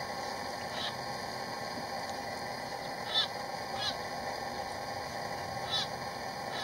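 Young great reed warbler giving short, harsh alarm calls close by, four times at uneven intervals, the second call the loudest, over a steady background noise.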